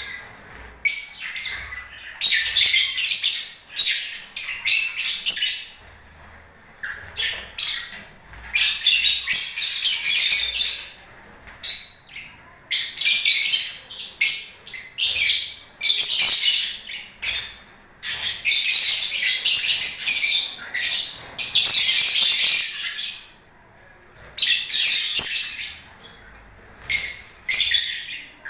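Lovebirds chattering with shrill, rapid squawks and chirps, in repeated runs of a second or two broken by short pauses.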